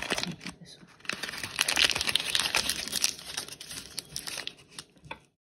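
Green paper cupcake case crinkling and tearing as it is peeled off the cupcake, a dense run of crackles that is loudest in the middle and stops abruptly a little after five seconds in.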